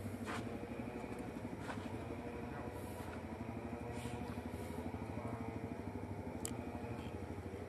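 A small engine idling steadily with a fast, even pulse, and a few faint clicks over it.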